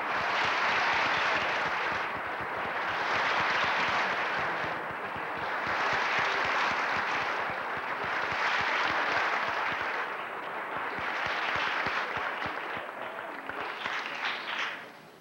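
Audience applauding, swelling and easing in waves, then dying away quickly near the end.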